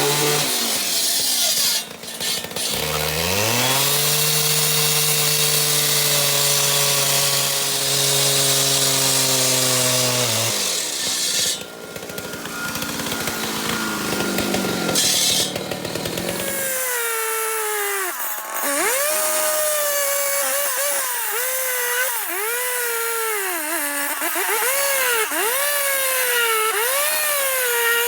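Concrete saw cutting through a patio slab, running steadily at first, then its pitch dipping and recovering over and over in the second half as the blade is worked into the cut.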